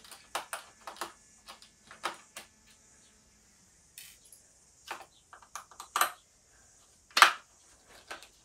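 Scattered small clicks, taps and clatters of a screwdriver, screws and the plastic bottom cover while a laptop is being taken apart by hand, with one louder clack about seven seconds in.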